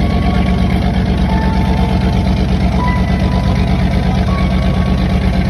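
Fishing boat's engine running steadily under way, a loud, even low drone.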